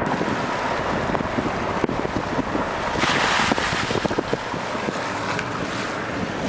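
Floodwater rushing along a roadside ditch, mixed with the road noise of a passing car and wind on the microphone; the rush swells about halfway through.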